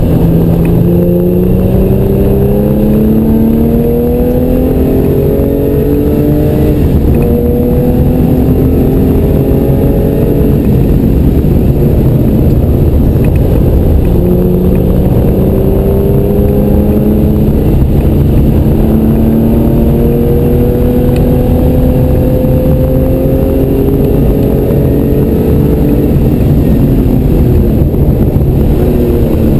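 Porsche 964's air-cooled flat-six engine under hard acceleration, heard from inside the cabin. The note climbs slowly in pitch over long pulls, goes ragged for a few seconds about a third of the way in, then climbs again.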